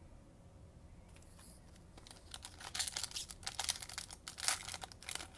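A Bowman baseball card pack's wrapper being torn open and crinkled by hand. It starts faintly about a second in and becomes a dense, irregular crackle from about two seconds in.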